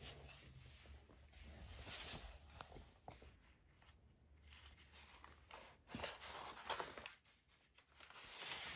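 Faint rustling and light taps of hands handling a picture book, in a few soft swells, with the cover being opened to the first page near the end.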